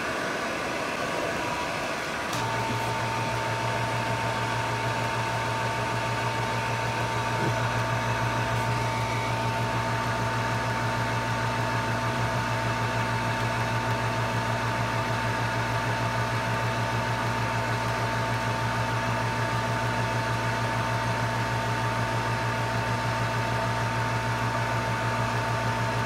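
Hot air rework station blowing steadily over a logic board chip to melt its solder for removal: a steady whir with a low hum and a steady tone, which steps up about two seconds in when the blower comes on. A quieter fan whir runs beneath it before that.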